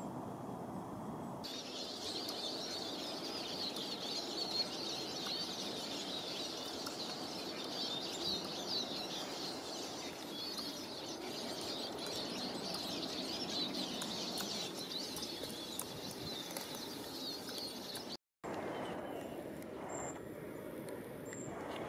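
Many small birds chirping and chattering continuously over a low steady background rumble. The sound cuts off suddenly near the end and gives way to a quieter background with a couple of short high peeps.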